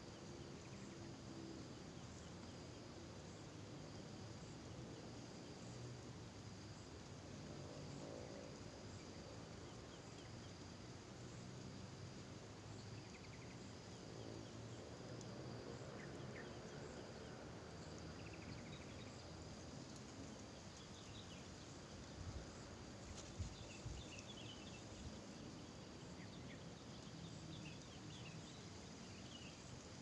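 Faint natural ambience: an insect's steady high-pitched trill throughout, with scattered faint bird chirps, mostly in the second half, and a few soft knocks a little past the middle.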